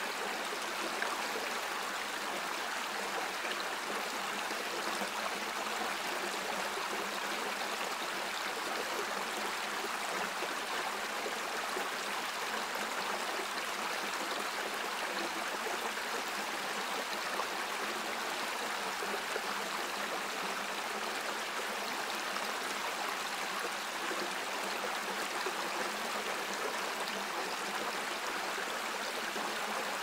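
Stream water flowing, a steady, even rush with no let-up and almost no deep rumble.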